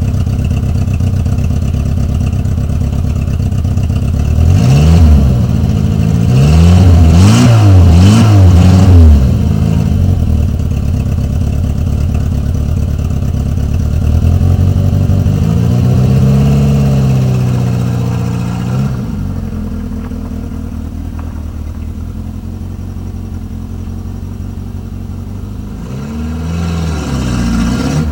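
Renault 19 car engine, just back from engine repair, running with a steady hum and revved up and down: several quick revs about five seconds in, a longer rise and fall in the middle, a quieter stretch, then another rev near the end.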